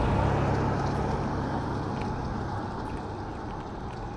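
A low engine hum that fades away, as from a passing motor; its steady pitched drone drops out about two and a half seconds in.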